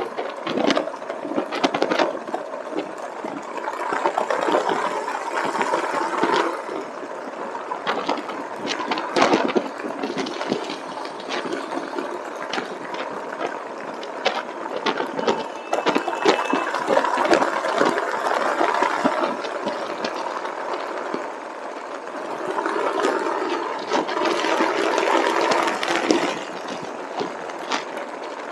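Rushing wind and road noise of a moving motorcycle, full of small rattles and knocks, swelling louder three times and easing back.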